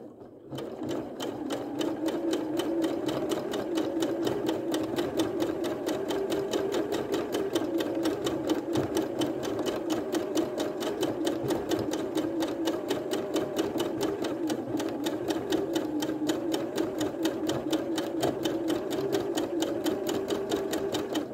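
Bernette domestic sewing machine running at a steady speed for free-motion quilting, its needle stitching in a fast, even clatter with a motor hum underneath. It starts up about half a second in.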